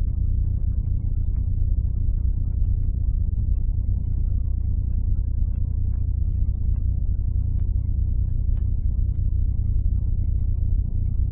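A steady, loud low rumble with little higher sound above it.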